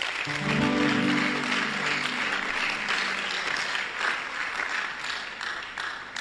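Congregation applauding and cheering, with a low held musical chord in the first two seconds; the clapping tapers off near the end.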